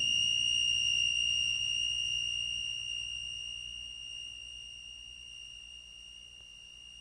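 A steady high-pitched electronic tone, a soundtrack effect of the atomic-bomb blast. It holds over the low rumble of the explosion, which fades away.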